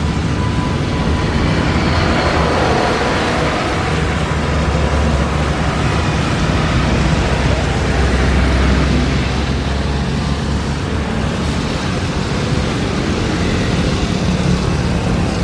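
Airbus A330-900neo's jet engines at takeoff thrust during the takeoff roll: a loud, steady jet roar with a deep rumble that swells around the middle.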